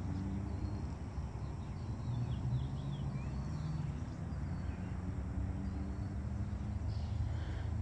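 Steady low rumble of outdoor background noise, with faint, short, high bird chirps a couple of seconds in and again near the end.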